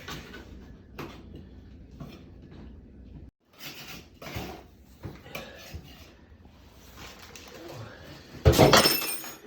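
Scattered small clicks and scrapes of hand work on a toilet's floor flange and closet bolts, ending in one loud metallic scrape near the end.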